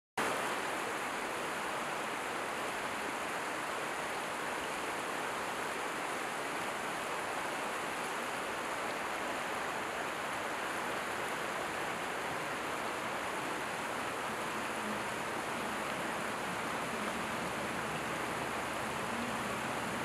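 Steady rushing of a mountain stream over rocks. In the last few seconds a low rumble joins it as the small forest-railway train approaches along the track.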